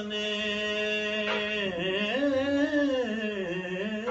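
A man singing a manqabat unaccompanied, stretching one word into a long melismatic line: a held note that then sways up and down in pitch and settles lower near the end.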